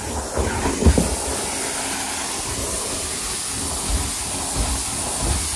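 Carpet extractor's stair tool drawing air over carpeted steps: a steady hiss of suction, with a few low thuds as the tool is moved, about a second in and again near the end.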